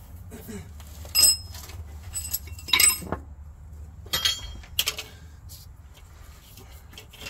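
Metal hand tools clinking and clattering as they are sorted through, with sharp ringing clinks about one, three, four and five seconds in, over a steady low hum.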